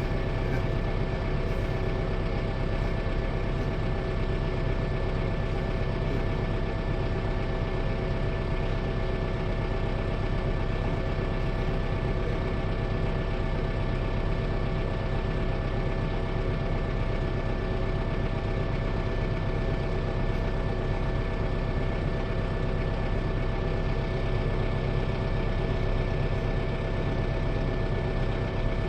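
Steady, unchanging mechanical drone with a constant hum and low rumble, like an idling engine.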